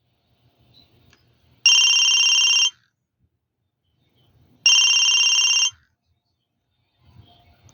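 Kyocera au W31K flip phone's speaker playing a trill-type ringtone: two rapidly pulsing electronic rings of about a second each, about three seconds apart.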